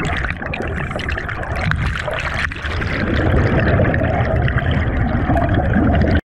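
Churning water and masses of bubbles heard from underwater, a loud, steady rushing noise heavy in the low end, which cuts off suddenly about six seconds in.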